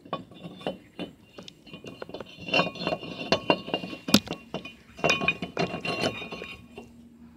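Metal brake rotor clinking and scraping against the hub and wheel studs as it is fitted, a run of short metallic clinks and knocks with a brief ring, the loudest about four seconds in.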